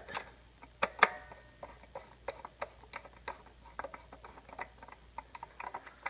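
Screwdriver turning down a terminal screw on a fire alarm pull station's terminal block to clamp a wire: a run of small, irregular metal clicks and ticks, with two sharper clicks about a second in.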